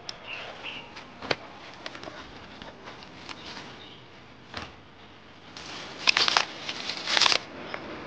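Leaves and small twigs rustling and snapping, with scattered sharp clicks and a louder spell of crackly rustling about six seconds in.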